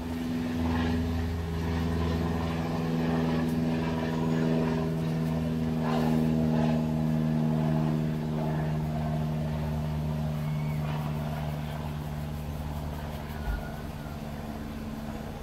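An engine running steadily, a low hum with an even pitch that eases off over the last few seconds. A single soft knock comes near the end.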